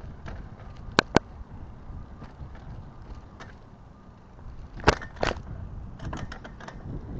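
Bicycle ride heard on the move: a steady low rumble of tyres and wind, with sharp clicks and rattles, a pair about a second in, another pair near five seconds in and a quick run of them around six seconds.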